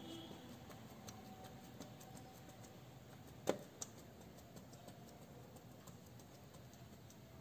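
Faint light taps and ticks of a wet sponge being dabbed and pressed onto a paper transfer sheet lying on an aluminium plate, with one sharper click about three and a half seconds in.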